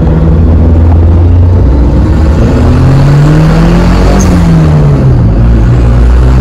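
Turbocharged car engine heard from inside the cabin, running steadily. About two and a half seconds in, the revs climb for a second and a half, then fall back and settle.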